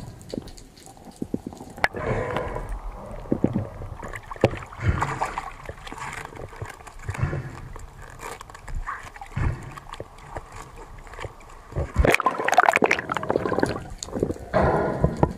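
Water sloshing and gurgling, with many scattered clicks and knocks and a louder, busier stretch about twelve seconds in.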